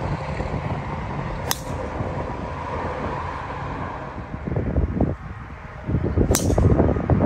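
Two golf tee shots: the sharp crack of a driver striking the ball about a second and a half in, and again near the end. Wind rumbles on the microphone throughout, gustier after the second shot.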